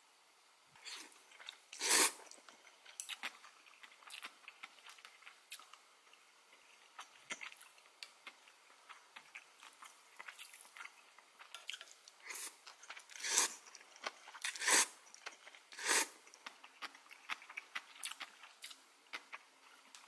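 Close-miked eating sounds of a person eating mul-naengmyeon, Korean cold noodles in broth: irregular chewing and crunching with small clicks throughout, and four louder, brief mouth noises about 2, 13, 15 and 16 seconds in.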